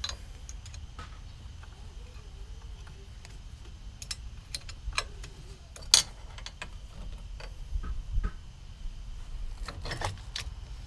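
Scattered light metallic clicks and clinks of a wrench and small engine parts being handled while the carburetor elbow is refitted, with one sharper click about six seconds in and a cluster near the end, over a steady low hum.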